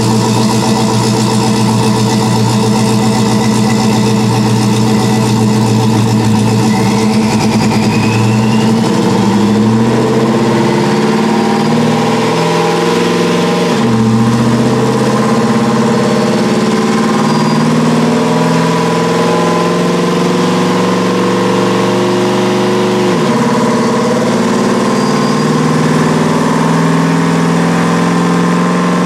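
Supercharged 5.3-litre V8 of a Chevrolet Silverado with Stainless Works headers and exhaust, running hard on a chassis dyno. Engine speed climbs in steps and falls suddenly twice, once about halfway through and again about three-quarters of the way in, like the automatic transmission shifting up.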